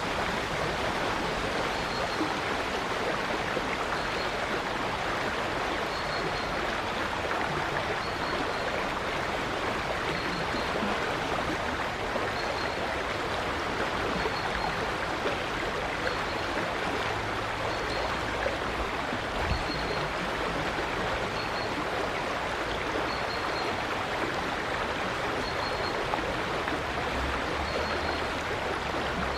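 River water flowing steadily, a continuous rushing with no pauses, and a faint high chirp repeating about every two seconds.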